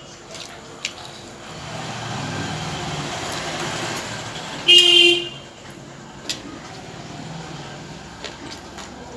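A vehicle horn beeps once, for about half a second, about five seconds in. It comes just after a vehicle passes by, its noise swelling and fading over a few seconds.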